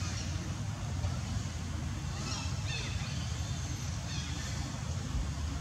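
Steady low outdoor rumble, with a few faint, short high chirps about two and a half and four and a half seconds in.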